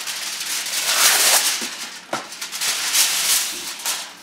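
Heavy-duty aluminium foil being pulled off its roll, torn off and crinkled as it is pressed over a baking dish, with a sharp crackle about two seconds in.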